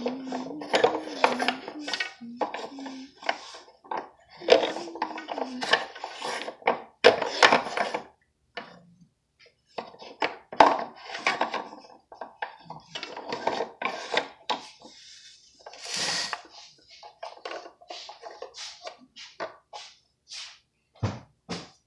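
Wooden beads of a child's activity cube clacking as they are pushed along the wire bead maze and abacus rods: a long run of irregular light clicks and knocks.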